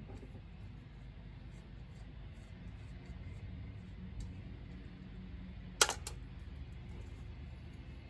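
Wrenches working on carburetor mounting studs: a few faint light ticks over a steady low hum, then a sharp clink about six seconds in, quickly followed by a second, softer one.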